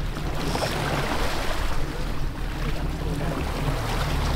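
Boat engine running steadily under the rush and splash of sea water along the hull, around a gaffed yellowfin tuna held against the side.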